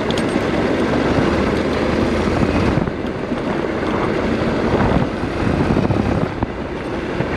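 Honda NC700X motorcycle riding on a dirt road: its parallel-twin engine running steadily under a dense rush of wind and tyre noise on the rider's microphone.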